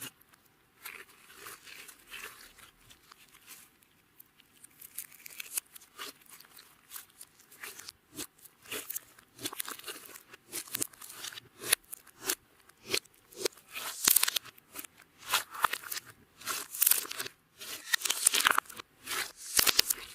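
Crisp crunching and crackling clicks from clear slime with makeup being worked by hand, irregular and growing louder toward the end.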